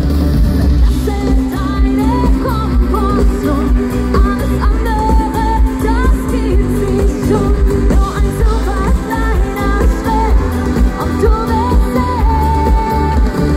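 Live schlager pop song: a sung melody over a full band with a heavy, steady bass.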